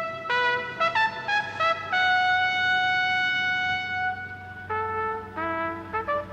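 Trumpet playing a melody in background music: a few short notes, one long held note of about two seconds, then a run of quick short notes.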